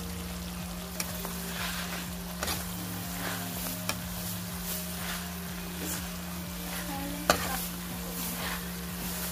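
A spatula scraping and knocking against a metal pan as dried taro leaves are stirred into hot coconut milk, over a soft sizzle and a steady low hum. Scattered sharp taps, the loudest one late on.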